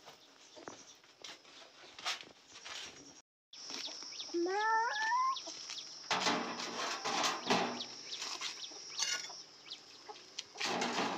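A chicken gives a short call of about four quick rising notes, a little over four seconds in, over a steady high-pitched hum. Scraping and rustling noise follows, with a louder stretch near the end.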